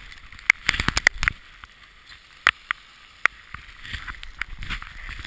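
Handling noise from a hand-held GoPro Hero HD in its housing: sharp clicks and knocks, a quick cluster in the first second and a half, then a few single knocks, over a faint hiss.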